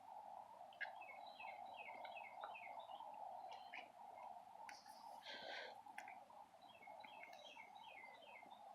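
Faint birdsong: a songbird sings a run of quick, repeated falling chirps about a second in and again near the end, over a steady faint background hiss.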